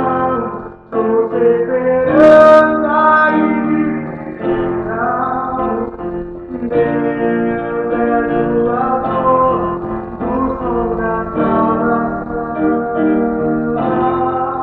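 A solo voice singing a slow song over instrumental accompaniment, with a short break in the singing about a second in.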